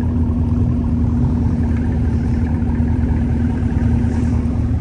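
Car engines idling steadily, a low, even engine sound with a constant hum.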